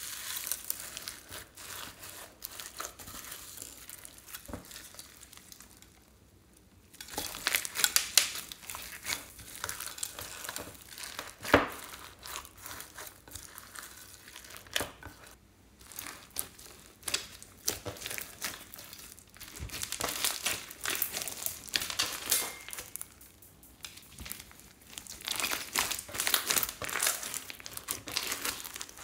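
Hands working foam beads, sprinkles and sequins into clear slime and kneading it: dense crunchy crackling and rustling, with a short pause about six seconds in.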